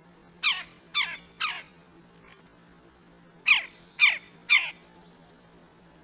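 Red-bellied woodpecker calling: two sets of three sharp calls, each dropping steeply in pitch, about half a second apart.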